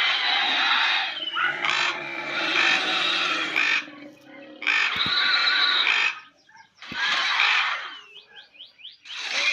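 A series of harsh, screechy squawking calls from the big white-headed bat creature sound effect, coming in loud bursts of one to two seconds with short gaps. Near the end comes a quick run of short rising chirps.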